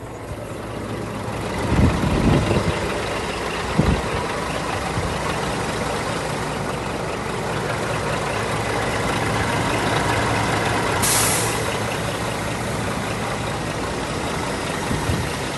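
Scania R480's 12-litre six-cylinder diesel engine idling steadily, heard with the front flap open. Two dull thumps come in the first few seconds, and a short air hiss sounds about eleven seconds in.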